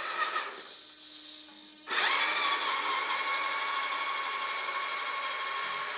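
Electric motor and reduction gearbox of a 1/10-scale RC4WD Desert Runner truck whining as it drives. It is quieter at first, then the whine starts suddenly about two seconds in and holds steady.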